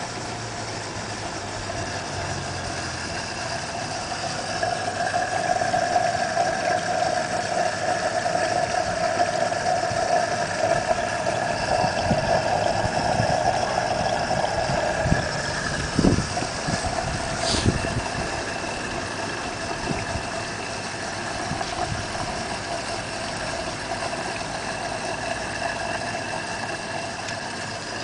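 Steady motor hum, typical of the pond's water pump running, over the splash of water pouring from a pipe into the tub. A few soft knocks come around the middle.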